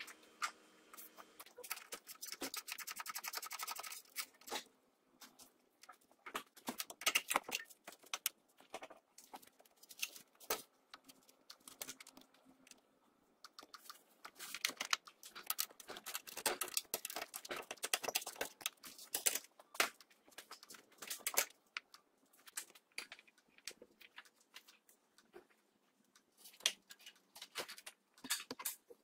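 Hand tools and metal parts clicking and knocking while the fittings of the power steering lines on a steering rack are undone. A couple of seconds of rapid clicking near the start, then scattered irregular clicks and knocks.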